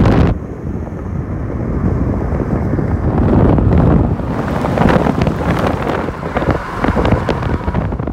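Wind buffeting the microphone over the road and engine rumble of a moving car. The sound drops sharply just after the start and then builds back to an uneven, gusty rumble.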